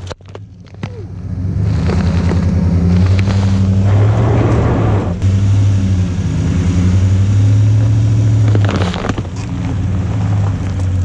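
Chevrolet Silverado pickup truck's engine running at low revs as the truck rolls slowly past on gravel, coming in about a second and a half in and holding steady. Crunching from the tyres on the gravel comes and goes.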